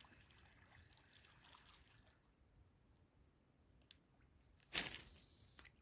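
Faint swamp background, then near the end a single sharp splash of water that dies away within about a second.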